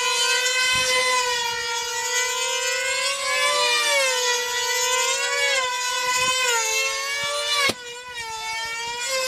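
Two F2D control-line combat models with high-revving two-stroke model engines flying in circles. They make a loud, high-pitched scream whose pitch wavers up and down as the planes swing round the circle. Near the end the loudness drops suddenly, and a quieter engine note carries on.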